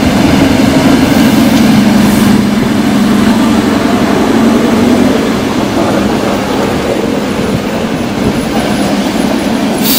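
Electric multiple-unit commuter train pulling into the station and rolling past close by along the platform, a steady running noise with a low hum that eases a little about halfway through as the train slows to stop.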